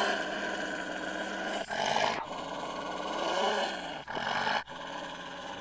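Wolf growling, in long rough stretches with brief breaks.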